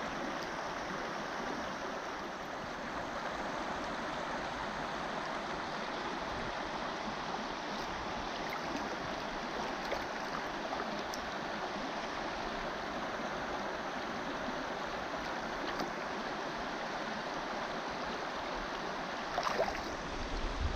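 Shallow river flowing steadily over a gravel and stone riffle. A couple of short, louder sounds come near the end.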